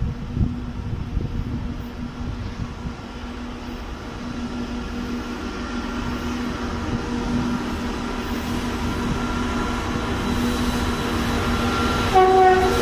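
2TE116 twin-section diesel locomotive approaching, its engine a steady drone that grows louder as it nears. A short horn note sounds near the end.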